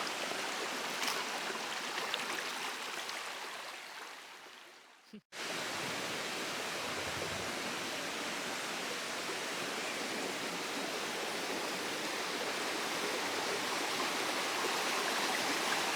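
Rushing river water, a steady hiss. It fades out about five seconds in, falls silent for a moment, then comes back abruptly and runs on steadily.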